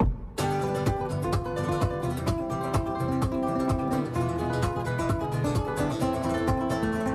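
Background music: a quick piece of plucked-string notes that starts after a brief gap at the very beginning.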